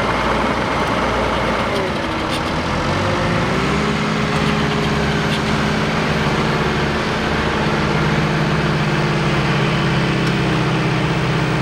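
Lamborghini Champion tractor's diesel engine running under load while pulling a reversible plough. Its note dips and settles about three seconds in, then holds steady.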